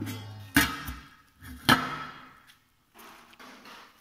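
Two sharp metal clanks about a second apart, the second the louder, each with a short ring: stainless-steel container and lid being set down on the steel top of a juice cooler.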